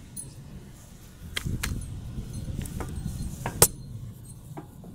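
A few sharp metallic clicks and clinks, the loudest about three and a half seconds in, from handling a coin-operated viewing telescope, over a low rumble.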